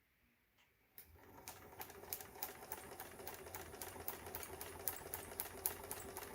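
Sewing machine starting up about a second in and running steadily: a motor hum with a fast, even clicking of the needle stitching through paper.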